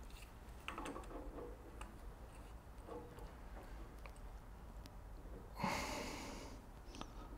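Faint clicks and small metal taps of an adjustable spanner being fitted to a nut on the change gears of a Boxford AUD lathe. A short, louder rush of noise about five and a half seconds in starts sharply and fades over about a second.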